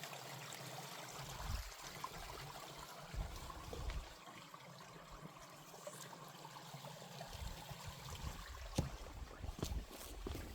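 Faint outdoor ambience: a steady hiss with irregular low rumbling, like wind on the microphone, and a few light clicks near the end.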